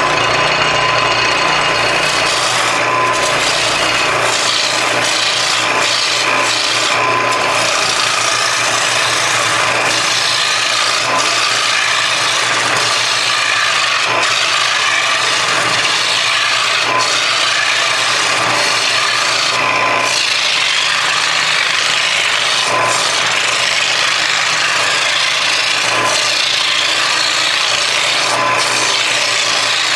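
Turning gouge cutting a spinning maple blank on a wood lathe, a steady rasping hiss of shavings being peeled off as the piece is turned down to about 2 inches, with the lathe's low hum underneath.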